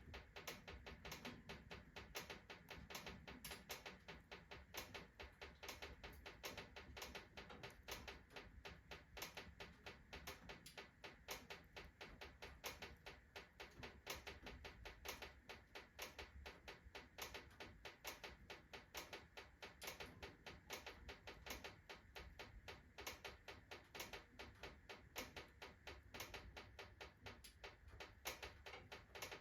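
Wood-burning stove freshly loaded with kindling and logs: steady, irregular crackling and ticking, several sharp clicks a second, from the burning wood and the stove's iron expanding as it heats quickly.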